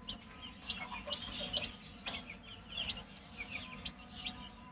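Newly hatched chicks peeping: many short, high cheeps, several a second and overlapping, many falling in pitch.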